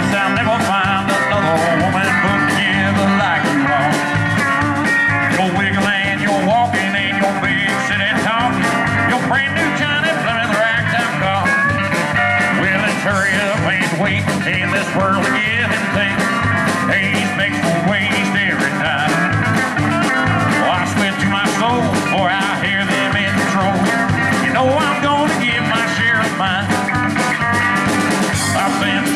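Live country rock band playing: guitars and drums with a steady beat.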